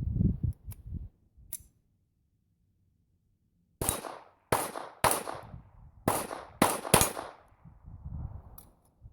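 Smith & Wesson Victory .22 LR pistol firing six shots in quick, uneven succession over about three seconds, starting around four seconds in.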